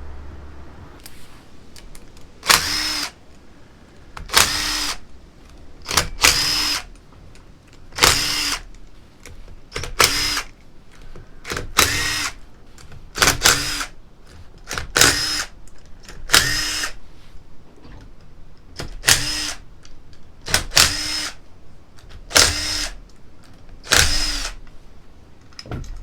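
Cordless drill/driver spinning in about a dozen short bursts, one every second or two, each running up and stopping: bolts being run out one after another during engine disassembly.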